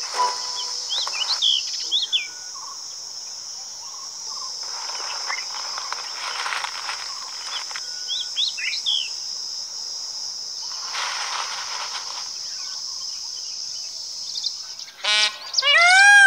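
Steady high-pitched insect drone with short bird chirps now and then. Near the end the drone drops away and a loud bird begins calling in repeated rising-and-falling notes.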